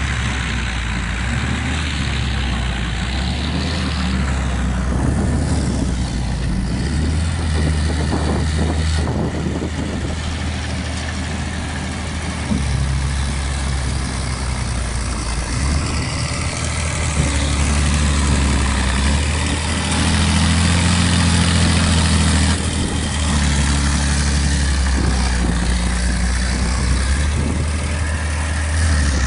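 Ursus 1224 tractor's diesel engine running hard under heavy load, its note rising and falling and growing louder in the second half, as the tractor struggles with the wheels bogged in deep mud while towing a loaded manure spreader.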